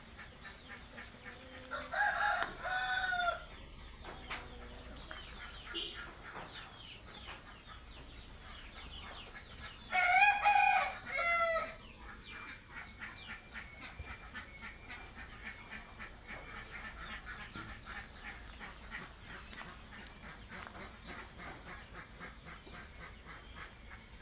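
A rooster crowing twice, about eight seconds apart, each crow a loud multi-part call, with fainter clucking from the flock in between.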